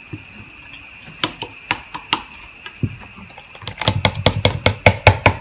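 A plastic spatula tapping and scraping against the plastic bowl of a small hand-pulled food chopper: a few scattered clicks, then a quick run of sharp taps, about five a second, in the second half. A steady high-pitched tone drones in the background.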